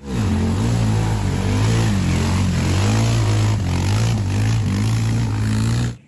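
Quad bike (ATV) engine revving up and down under load as it ploughs through a muddy creek, with water splashing. It starts and stops abruptly.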